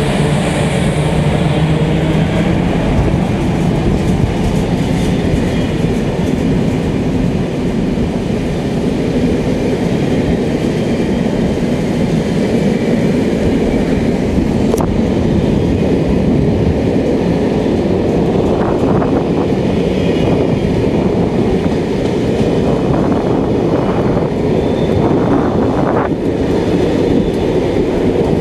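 Belgian Série 27 electric locomotive and its M4 passenger coaches rolling past: a steady, loud rumble of steel wheels on rail.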